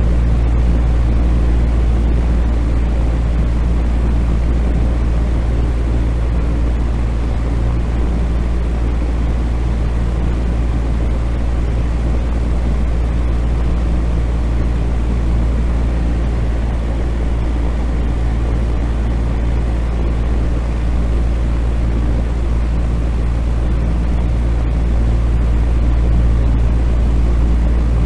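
Electric fan running steadily: a constant low hum under an even rush of air.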